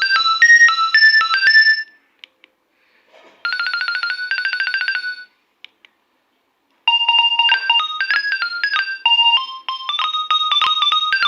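Nokia 2300 mobile phone playing its built-in ringtones one after another. A melody ends about two seconds in. After a short gap, a rapid, evenly repeating run of notes plays for about two seconds. Another gap follows, then a new melody of single notes starts and carries on. A few brief clicks fall in the gaps.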